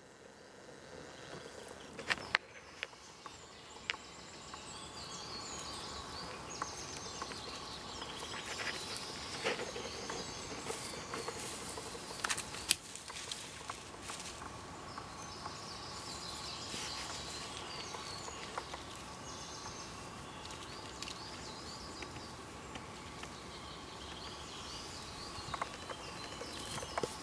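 Woodland ambience: small birds chirping and singing in the background over a steady hiss, with a few scattered sharp clicks.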